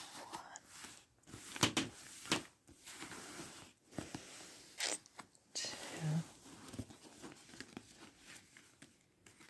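Paper Lenormand cards being swirled and slid across a quilted bedspread and drawn from the spread: irregular papery swishes and scrapes with a few sharper clicks.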